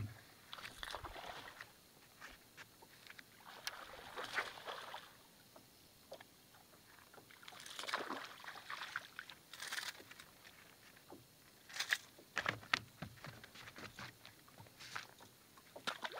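Small splashes and sloshing of water as a hooked small bass is fought up to the boat, in a few swells a second or two long. A cluster of sharp clicks and taps comes near the end as the fish is landed.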